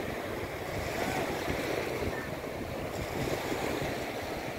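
Small ocean waves breaking and washing up a sandy shore in a steady rush, with wind buffeting the microphone.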